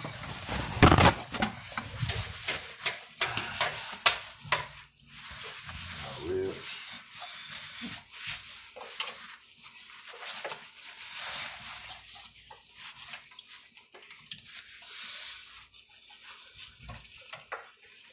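Knocks and clatter of things being handled, loudest about a second in, then water running into a kitchen sink while hands work in it, with scattered light knocks.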